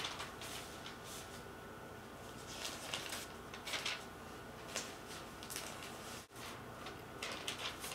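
Newspaper coupon insert sheets being pulled apart and laid down on carpet: short, soft paper rustles now and then.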